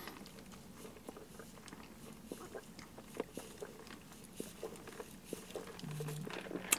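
A person sipping an iced sweet tea and lemonade through a straw, with soft scattered swallowing and mouth clicks, and a short closed-mouth hum a little before the end.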